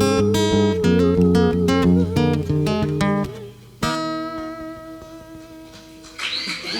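Acoustic guitar strumming the closing chords of a song, ending on one last strummed chord about four seconds in that rings out and fades. Audience applause starts near the end.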